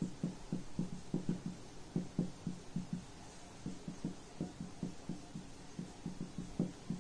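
Marker pen writing on a whiteboard: an irregular string of short, soft, low taps and strokes, several a second, as figures are written out.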